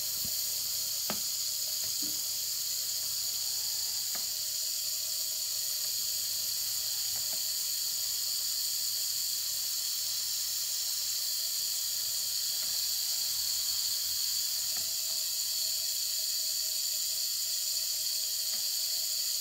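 Think Gizmos Gyro Zoomer mini RC helicopter's tiny electric motors running in a steady high-pitched whir, its rotors spinning while it is held in the hand. The owner suspects a split gear slipping on the motor shaft, which keeps it from lifting off.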